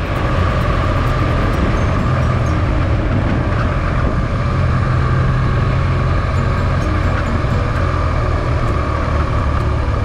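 Motorcycle engine running steadily at cruising speed on an even paved road, heard from an on-board camera, with wind noise. The engine note holds level throughout.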